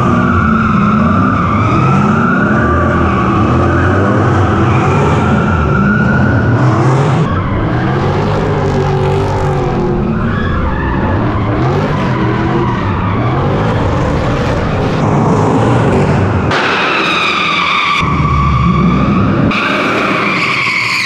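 V8-swapped Nissan S13 drift car, its engine revving up and down repeatedly with tyres squealing as it slides.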